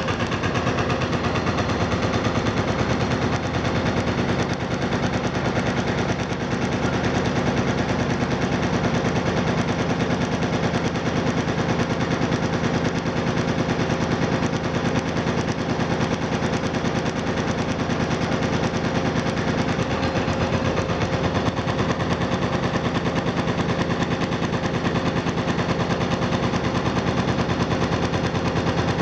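Hydraulic demolition hammer on an excavator pounding concrete: a rapid, steady rattle of blows that goes on without a pause.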